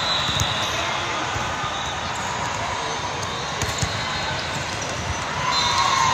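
Volleyball being struck a few times with sharp hits over the steady, echoing din of many matches in a large hall. Players' shouting and cheering rise near the end as the point is won.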